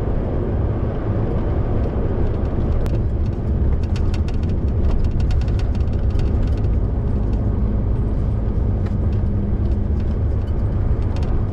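MAN lorry driving at a steady speed: a continuous low engine drone with road noise.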